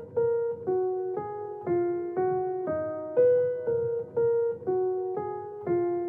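Background music: a slow keyboard melody of single piano-like notes, about two a second, each struck and then fading.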